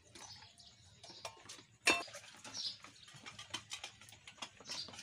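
Small wood fire crackling in a mud chulha under an iron tawa: irregular little clicks and pops, with one sharp clink about two seconds in and a few faint high chirps.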